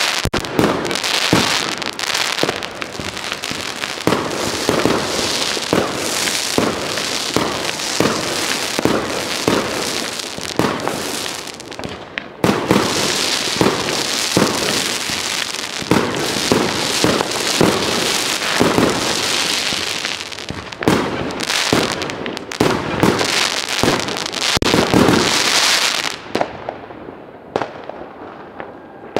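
Fireworks going off: a dense, continuous run of bangs and crackling, broken briefly about twelve seconds in, thinning to fainter, scattered pops in the last few seconds.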